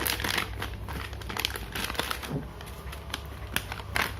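Plastic packaging crinkling, with a run of small clicks and snaps as a plastic action-camera case is opened by hand.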